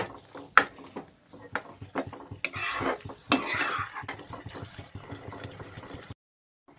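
Steel spatula stirring thick halwa in a nonstick kadhai: sharp clicks of the spatula against the pan, two longer scrapes through the mixture about halfway, then fainter taps until the sound cuts off about six seconds in.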